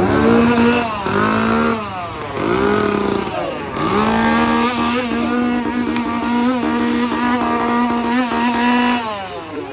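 Small two-stroke chainsaw engine revved in three short bursts, then held at high revs for about five seconds before dropping off near the end.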